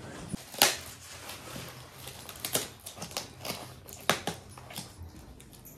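Irregular light clicks and rustles of things being handled, with two sharper clicks, one under a second in and one about four seconds in.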